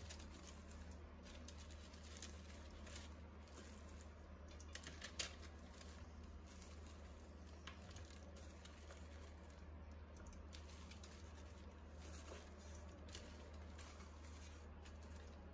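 Near silence with faint, scattered crinkles and light taps as a plastic-gloved hand scoops sticky oat-and-nut mixture from a metal bowl onto parchment paper, over a low steady hum.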